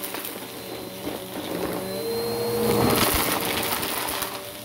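Bissell Power Force Helix upright vacuum cleaner running over carpet, its motor humming steadily with a faint high whine. Crackling and rattling come from debris being picked up, and the sound grows louder about halfway through.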